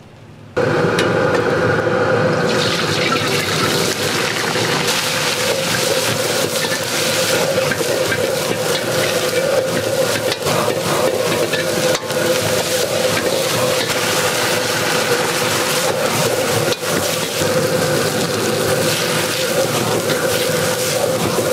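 Cabbage, onion and carrot stir-frying in a wok over a high gas flame: steady sizzling over the burner's roar as the vegetables are tossed. It starts suddenly about half a second in.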